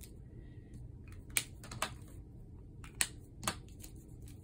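About four short, sharp plastic clicks: caps being snapped back onto felt-tip markers, with the loudest click a little over a second in and another about three seconds in.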